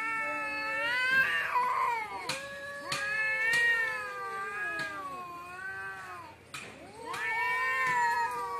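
Two domestic cats in a fighting standoff, caterwauling at each other: long, drawn-out yowls that rise and fall in pitch and overlap. The yowling breaks off briefly about two-thirds of the way through, then starts up again.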